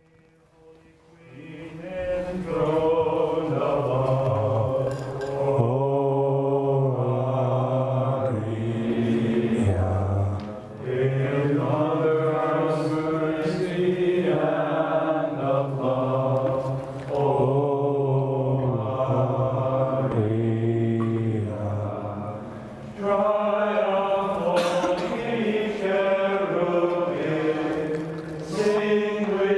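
A congregation singing a hymn together, line after line with short pauses for breath between phrases; the singing swells in over the first couple of seconds.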